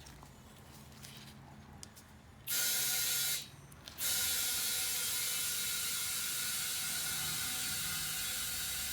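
Small air compressor inflating a tyre: it starts about two and a half seconds in, stops briefly, then runs steadily with a hissing, rattly sound.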